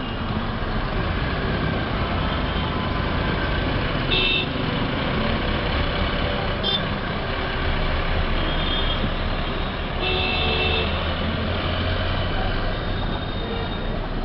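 Busy city street traffic: engines running in a steady rumble as vehicles idle and pull past, with several horn toots. The longest honk comes about ten seconds in.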